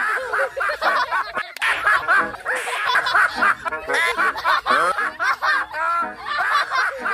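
Rapid snickering and giggling laughter, repeated without a break.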